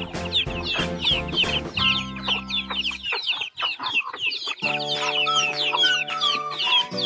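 A flock of chicks cheeping continuously, many short falling peeps overlapping, over background music of held chords.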